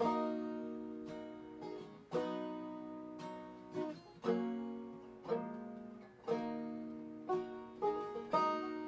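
Acoustic guitar and banjo playing a slow instrumental passage without singing, a plucked chord about once a second left to ring out.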